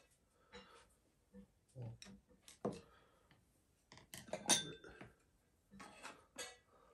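Chopsticks and a small bowl knocking and clinking against a pot and table as noodles are served: a few scattered clicks and taps, loudest about four and a half seconds in.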